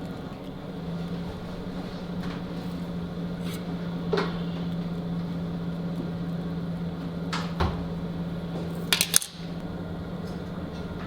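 Steady hum of kitchen ventilation with several light taps and clinks of a utensil against dishes, the two loudest close together about nine seconds in, as smoked sturgeon rillette is spread onto flatbreads.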